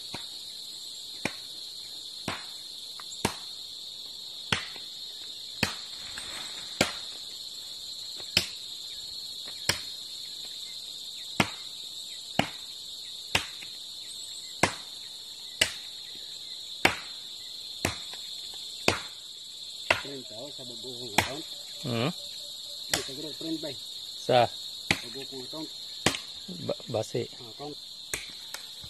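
Steady high-pitched drone of insects, with sharp, evenly spaced knocks about once a second.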